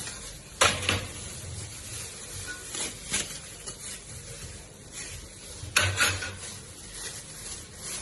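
Knocks and clatter of grill parts being handled and set down during unboxing and assembly, with two louder knocks about half a second in and near six seconds and a few lighter ones in between.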